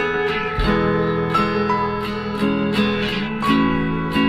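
Background music led by a plucked guitar, playing notes at an even pace.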